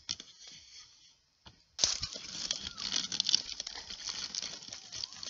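Dry leaves and twigs rustling and crunching close to the microphone, a dense crackling that starts suddenly about two seconds in, after a few faint clicks.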